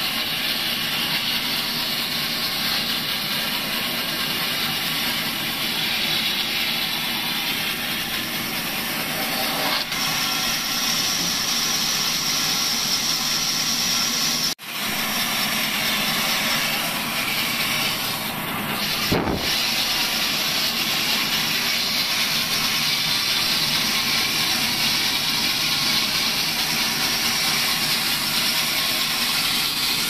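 Vertical band saw running and ripping a long wooden plank lengthwise, a steady hiss of the blade cutting through the wood. The sound breaks off sharply for an instant about halfway, and a single sharp knock comes a few seconds after.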